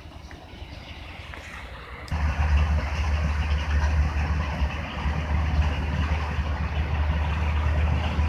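Large road snowblower machine running: a heavy, steady low engine drone with a rushing noise over it, which comes in suddenly and much louder about two seconds in after a fainter rumble.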